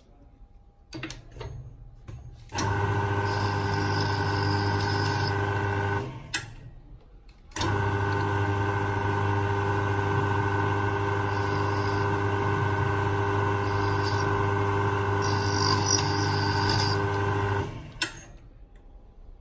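Jewelry lathe spindle motor running with a steady hum while the cutting tool turns the edge of a gold wedding band. It runs for about three seconds, stops briefly, then runs again for about ten seconds, with a short sharp click just after each stop.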